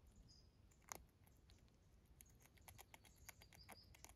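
Faint, sharp crunching clicks of a gray squirrel gnawing dried corn kernels, one stronger crack about a second in and a quick run of small clicks in the second half.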